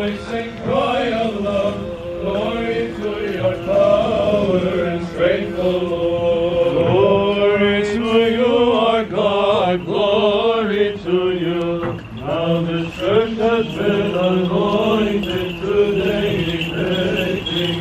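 Men's voices chanting an Orthodox liturgical hymn together as they walk in procession, the melody moving over a held low note.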